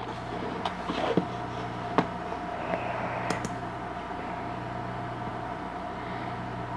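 Steady computer hum with a few scattered mouse clicks as menus are opened.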